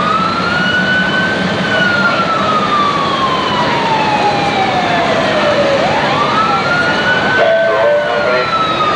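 Siren wailing: it climbs quickly to a high pitch, holds briefly, then slides slowly down over several seconds before winding up again about six seconds in.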